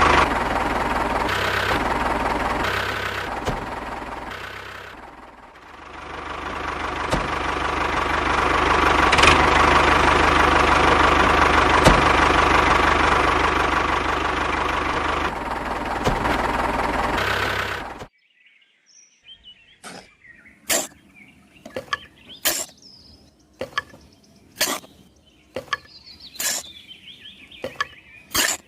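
A motor running loudly and steadily, sagging briefly and building back up, then cutting off abruptly about two-thirds of the way through. It is followed by a series of sharp taps, roughly one a second.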